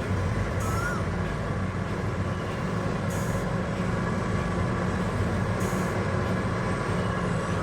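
Heavy diesel mining machinery at work, a large excavator and haul trucks: a steady deep engine drone with a dense low rumble, and a short high hiss about every two and a half seconds.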